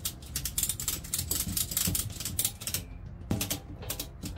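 Rapid, irregular clicking and crackling from a tractor tire being handled on its rim, with a short pause about three seconds in.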